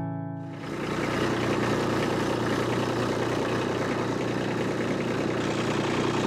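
Kubota B2601 compact tractor's three-cylinder diesel engine running steadily at a low, even speed.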